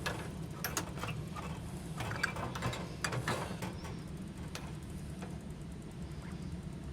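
Scattered light clicks and scrapes of metal parts being handled as a part is worked up into its bracket under a gas water heater's tank, over a steady low hum.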